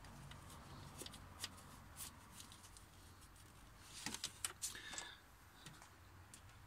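Faint scattered clicks and rustling from a hand screwing a new oil pressure sensor into an engine's oil filter housing and brushing the wiring around it. A brief cluster of sharper clicks comes about four seconds in.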